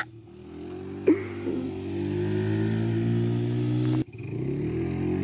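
Four-wheeler ATV engine running as the quad drives across the grass, growing louder over the first two seconds as it accelerates and then holding steady. About four seconds in the sound cuts off abruptly, then comes back with the revs rising.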